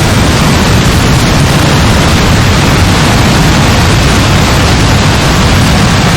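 Heavy rain falling: a loud, steady, dense hiss with no distinct drops or pauses.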